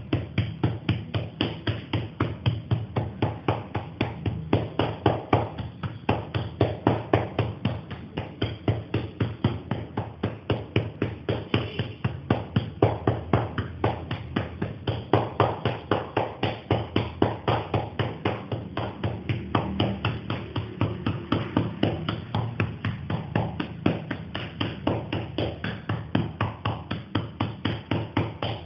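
A hand patting a child's back and shoulders in quick, even strokes, about four pats a second. It is the tapping done to loosen a cough.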